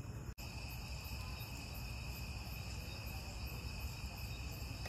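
Night insect chorus: crickets trilling steadily at several pitches over a low background rumble, with a brief break in the sound just after the start.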